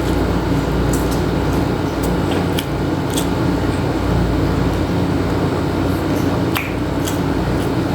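A steady mechanical hum, like a fan or air conditioner running, with a few faint clicks of eating scattered through it.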